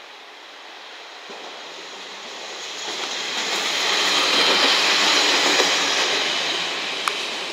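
A single KiHa 40 diesel railcar passing close by: its running noise on the rails grows to a peak about four to six seconds in, then fades as it moves away, with one sharp click near the end.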